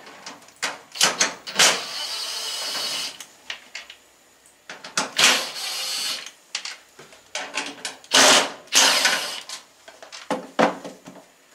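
Cordless drill-driver backing out three screws from the microwave's top vent panel, in three short runs of about a second each. Clicks and handling knocks come between the runs.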